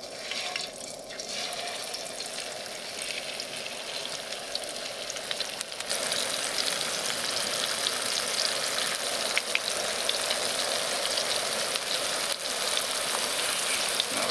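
Breaded walleye fillets sizzling in hot oil in a frying pan, a steady frying hiss that grows louder about six seconds in.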